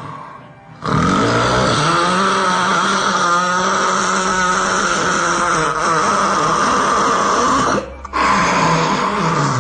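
A very loud, exaggerated human snore held for about seven seconds, then a brief break and another snore starting near the end.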